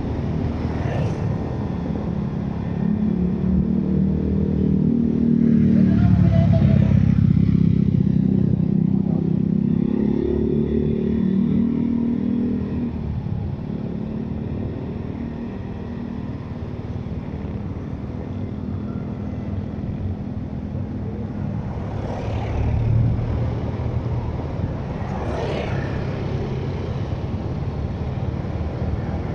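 Vehicle engine and road noise while driving through traffic. The engine note is louder from about four to twelve seconds in, then runs steadily.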